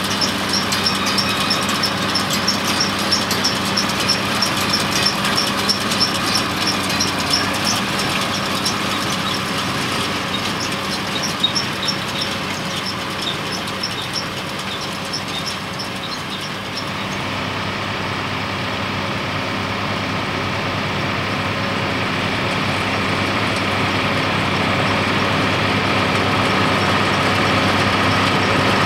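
Case Maxxum 140 diesel tractor running with a Feraboli Extreme round baler in tow, with a fast, regular clicking that fades as the rig drives off. About two-thirds of the way through the sound changes, and the tractor's engine grows steadily louder as it approaches.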